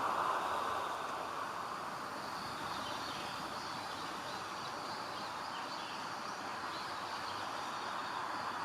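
Outdoor ambience: a steady rushing noise, with faint high chirps and trills above it.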